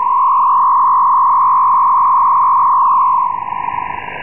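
Steady whistle near 1 kHz of a carrier heard through an Icom IC-7600 receiver in upper sideband, over band hiss. It stops a little over three seconds in, and the plain hiss returns.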